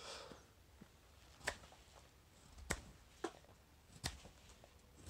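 Carving knife slicing shavings off the back of a wooden spoon handle: about five short, crisp cuts, roughly one a second.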